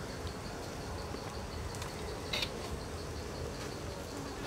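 Insects chirping in a steady, even pulse, with one short scrape of a metal ladle in the wok about two and a half seconds in.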